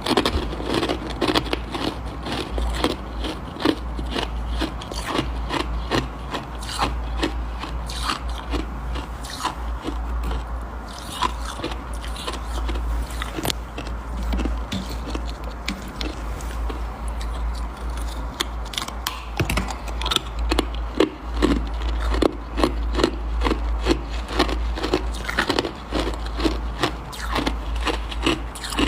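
Close-miked crunching of freezer frost and soft, powdery ice: a dense run of crisp crackles, several a second, louder in the second half.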